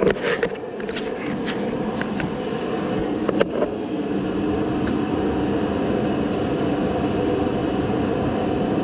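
Steady mechanical hum of a running fan-like machine, with a few handling clicks and knocks in the first couple of seconds and one more a little later.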